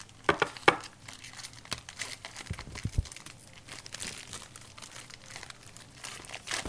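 Plastic wrapper of a trading-card pack crinkling and tearing as it is opened, with irregular sharp clicks and light taps from handling the pack and cards.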